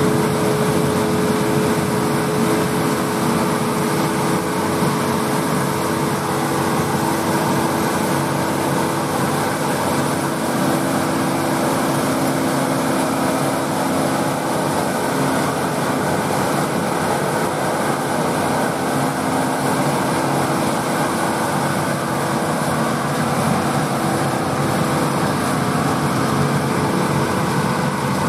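A John Deere 8R tractor's diesel engine runs steadily under load while pulling a KMC six-row peanut picker, the picker's threshing machinery running with it. Together they make a constant drone with a few held tones.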